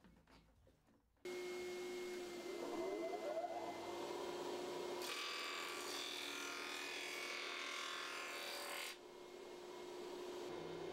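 Vintage 7-inch planer/jointer running: its electric motor and cutterhead come in suddenly with a steady hum about a second in. From about five to nine seconds a board is run across the cutterhead, a loud rough cutting noise, and then the machine runs on alone.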